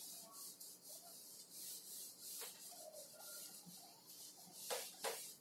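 A cloth wiping marker writing off a whiteboard: a run of faint, short rubbing swipes, with two sharper strokes near the end.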